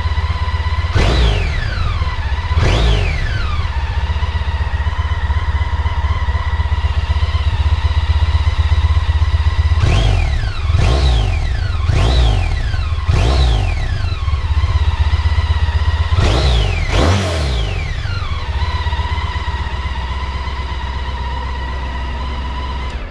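Honda ST1300's 1261 cc V4 engine, warmed up, idling through its stock exhaust and blipped about eight times. Each blip shoots the revs up and lets them fall straight back to idle. The blips come twice at first, then four in quick succession, then two more.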